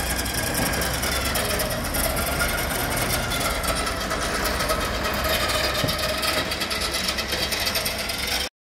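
A motor running steadily, with a faint wavering whine over a constant low drone; it cuts off abruptly near the end.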